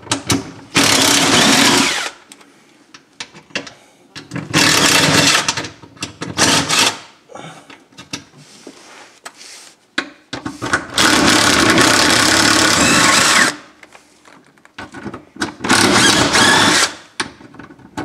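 Cordless drill backing screws out of the lift-mechanism brackets under a pop-up camper, run in five separate bursts with short pauses between. The longest burst lasts about two and a half seconds, a little past the middle.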